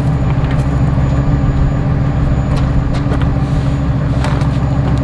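Ford F-350 service truck's engine idling steadily with a low, even rumble, with a few faint clicks over it.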